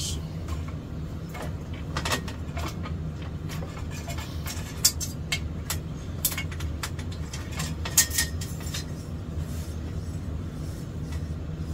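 A steady low hum with scattered clicks and knocks, one sharper knock about halfway and another about two-thirds of the way in: hand tools being picked up and handled while a notched straight edge is fetched.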